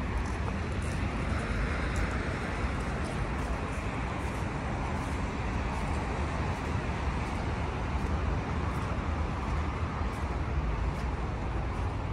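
Steady city traffic: a constant rumble and hiss of cars on a wide street, with no single vehicle standing out.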